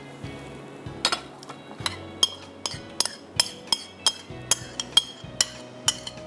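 Metal spoon clinking repeatedly against bowls as a small ceramic bowl is scraped out into a glass mixing bowl. The sharp, ringing clinks start about a second in and come about two a second.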